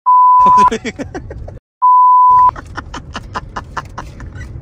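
Two edited-in censor bleeps: a loud, steady, high beep lasting about two-thirds of a second near the start, and the same beep again about two seconds in. The sound around each is cut to dead silence.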